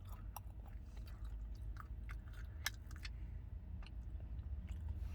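Close-miked mouth sounds of a person chewing food: scattered soft clicks and smacks over a steady low hum.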